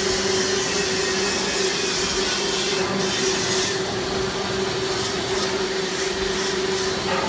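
SHMCF3022 wood lathe running with its rotating cutter head cutting a spinning wooden blank: a steady motor hum under the rough hiss of wood being cut away.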